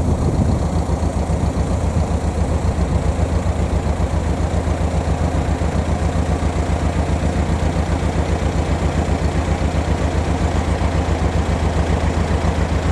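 An engine idling steadily, a low, even, rapidly pulsing rumble.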